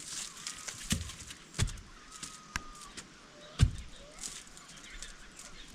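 Four sharp, irregular knocks about a second apart, with faint bird chirps in the background.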